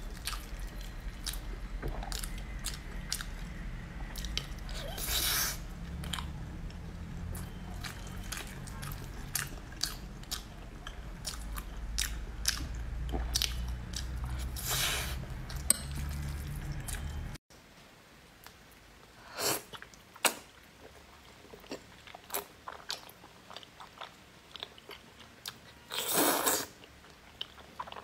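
Close-miked eating sounds: wet chewing and biting of braised pork and rice, with many small mouth clicks and smacks and a few short, louder rushes of noise. A low hum in the background stops abruptly about two-thirds of the way through, and after that the chewing is quieter.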